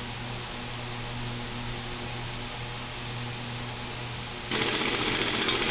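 Steady low hum of a repair-shop bay. About four and a half seconds in, a sudden loud burst of mechanical tool noise starts and is still going at the end.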